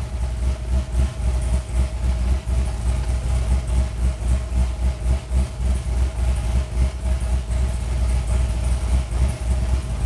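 2006 Chevrolet Corvette's 6.0-litre LS2 V8 idling with an uneven, pulsing beat from its large camshaft. Cylinder 1 misfires over and over, far more than the other cylinders.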